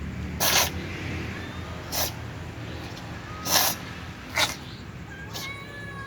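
Cat sneezing repeatedly: four sharp sneezes about a second or so apart, then a fainter fifth near the end.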